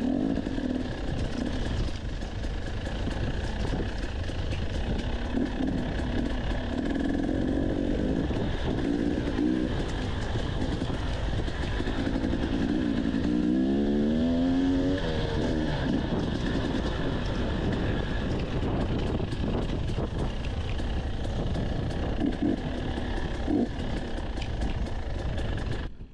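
Dirt bike engine running on a trail ride, its pitch rising and falling as the throttle opens and closes, heard close from the bike.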